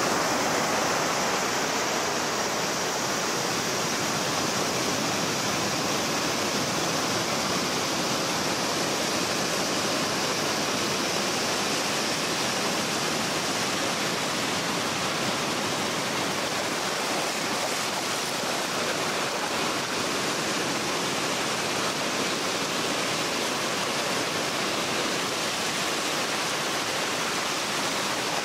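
Small ocean waves breaking in the shallows and washing up over a sandy beach: a steady rush of surf.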